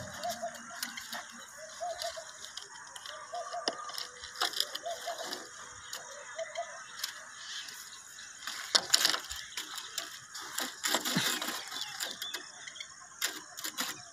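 Light clicks and knocks of plastic pipe fittings (elbows and a length of pipe) being handled and pushed together, irregular, with louder knocks about nine and eleven seconds in.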